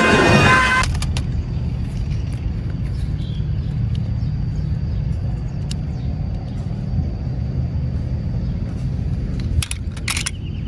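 The tail of a cartoon rocket blast cuts off under a second in. A steady low outdoor rumble follows, with a few sharp clacks of plastic toy cars being handled in a basket near the end.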